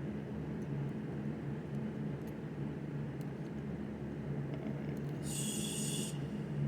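Faint scattered metallic ticks of a pick and tension tool working inside a Master Lock 9150TLF padlock, over a steady low hum. A brief high hiss comes about five seconds in.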